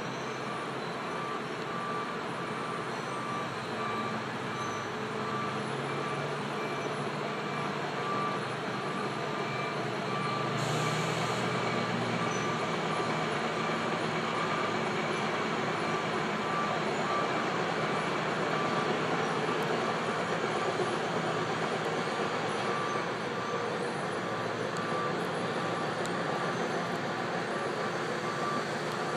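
Heavy road-construction machinery running steadily, with a reversing alarm beeping repeatedly; the beeping fades in the middle and comes back near the end.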